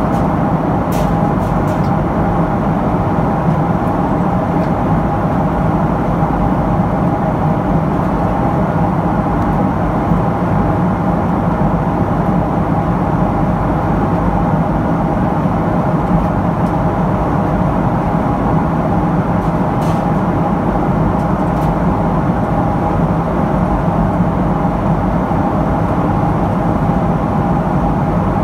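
Steady inside-the-cabin drone of a Boeing 777-300 climbing under power from its Rolls-Royce Trent 800 engines. It is a low rumble with a thin, even whine held over it.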